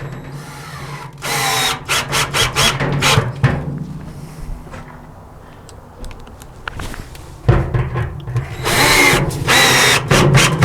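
Power drill boring starter holes through the sheet-metal wall of a washing-machine tub into plywood: a steady motor hum broken by loud bursts as the bit cuts. There is one long burst about a second in, a run of short stabs, and another long burst near the end.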